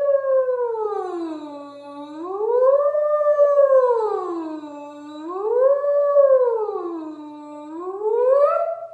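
A woman's voice sliding smoothly up and down on one held sound, with no break: it falls, rises, falls and rises again, in about three slow swoops, ending on a rise. It is a vocal siren warm-up that follows the bird's rising and falling flight.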